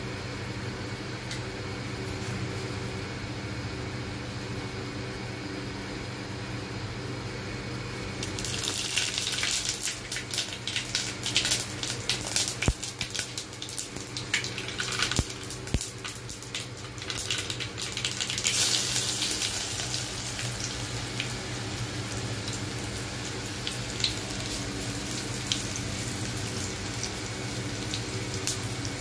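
Hot oil sizzling and spitting as ingredients for a tadka, cumin seeds and chopped garlic, go into an aluminium pressure-cooker pan; the crackling starts suddenly about eight seconds in, is loudest for the next ten seconds or so, then settles to a quieter steady sizzle. A steady low hum runs underneath.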